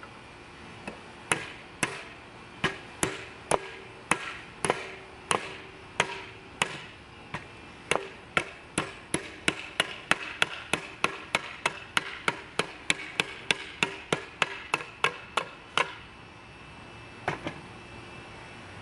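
A heavy 80CRV2 steel chopper knife chopping into the end of a wooden board: a long run of sharp chops, about two a second at first and quickening to about three a second, then stopping, followed by a last quick double strike near the end.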